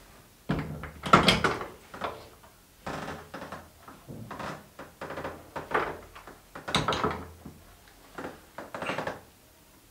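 Irregular knocks, scrapes and clatter from handling the plastic and metal parts of a gaming chair as the seat and its mechanism are worked on, in a dozen or so short bumps. The loudest come about a second in and again about seven seconds in.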